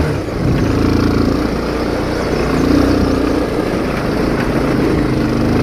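Motorcycle engine running while riding over a rough, rocky dirt track, its note rising and falling a little with the throttle, over a steady rough noise from the ride.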